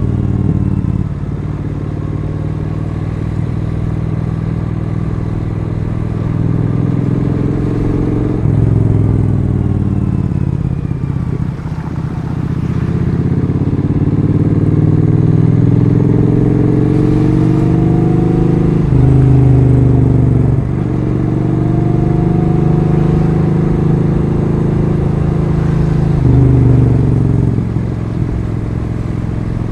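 Triumph Street Twin 900's parallel-twin engine being ridden and pulling through the gears: the engine note climbs in pitch several times, each climb broken by a sudden drop at a gear change.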